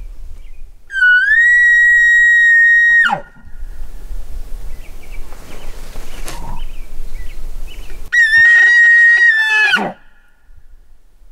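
Elk bugle call blown twice as a locator to draw a gobble from a turkey. Each call is a long, loud, high whistle that rises, holds steady, then drops off sharply at the end, the two about five seconds apart.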